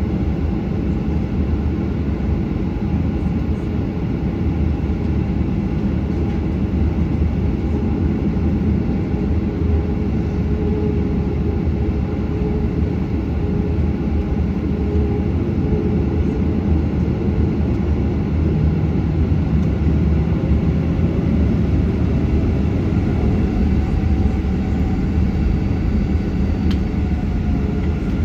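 Steady cabin noise inside a Boeing 737-800 airliner: the even rumble of its running jet engines and the airflow, strongest in the low range, with no sudden changes.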